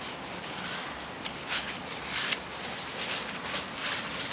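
Faint rustling and crackling of leaves and twigs in shrubbery, with one sharp snap about a second in and a few softer rustles after it.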